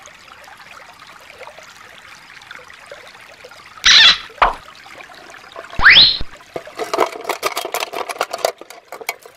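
Faint trickling of a shallow stream, broken about four seconds in by a loud short rush of noise and around six seconds by a loud whoosh rising in pitch. From about seven seconds, plastic toy animals clatter and click against each other and a clear plastic storage box as they are rummaged through.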